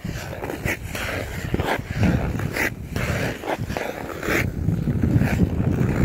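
Ice skates gliding and scraping over frozen pond ice, with a rough, hissy scrape about once a second over a low rumble of the ice.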